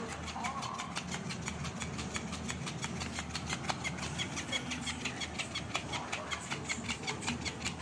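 Electric flopping fish cat toy running: its motor works the tail in a fast, even ticking of several beats a second.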